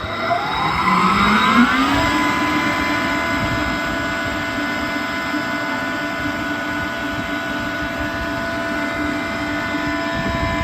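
Renner RS 22 22 kW screw air compressor starting up: its electric motor and screw element spin up with a rising whine over the first two seconds or so, then run at a steady pitch with a constant hum and whine.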